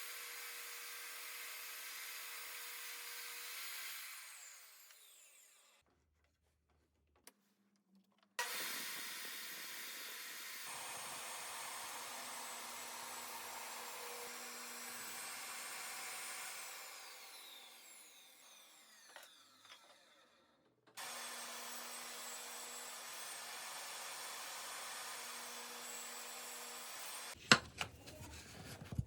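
Sliding table saw running and cutting wood in three spells. The first two wind down with a falling whine as the blade coasts to a stop. Several sharp knocks come near the end.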